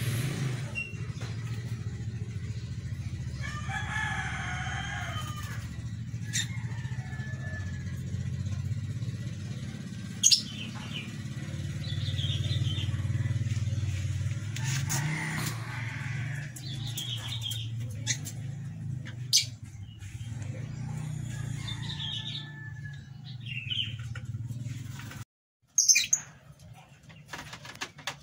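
Birds chirping and calling now and then, including one longer call about four seconds in, over a steady low hum. A few sharp clicks stand out, the loudest near the end.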